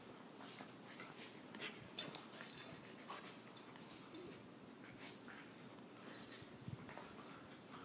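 Two puppies play-fighting: scuffling, mouthing and short dog noises, coming in scattered short sounds, the sharpest about two seconds in.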